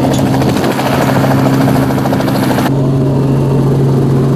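Light helicopter running on the ground: engine hum with the fast, even chop of the main rotor. A little over halfway through the sound changes abruptly to the duller, steadier engine and rotor drone heard from inside the cabin.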